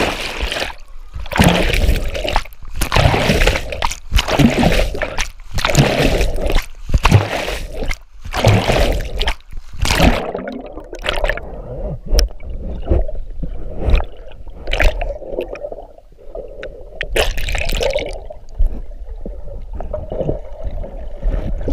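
Water churning and bubbling heard with the microphone underwater, muffled: loud irregular surges of bubbles for about the first ten seconds, then quieter gurgling with a few sharp knocks.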